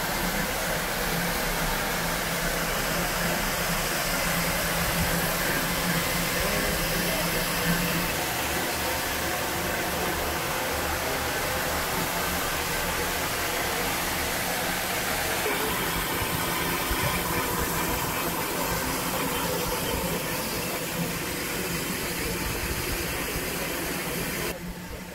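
Steady hiss of escaping steam from LNER J27 steam locomotive No. 65894, with a low steady hum through the first third. The hiss cuts off abruptly just before the end.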